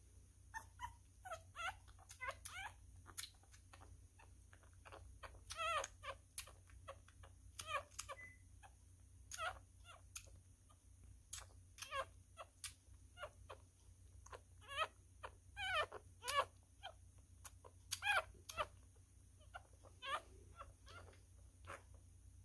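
Newborn miniature schnauzer puppy crying in many short, high squeaks and whimpers, some rising and falling in pitch, coming irregularly every second or so during syringe feeding.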